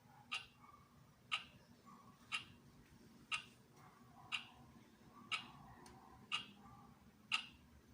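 A clock ticking steadily, one sharp tick a second, about eight ticks.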